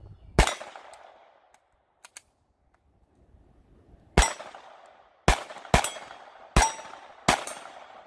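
Six .22 rimfire pistol shots at steel plates: one shot, a pause of nearly four seconds, then five more in quicker succession. After some shots a short metallic ring of a struck steel plate is heard.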